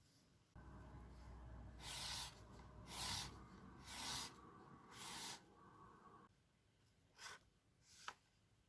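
Writing on paper: four scratchy strokes about a second apart over a low steady rumble, then two short ticks near the end.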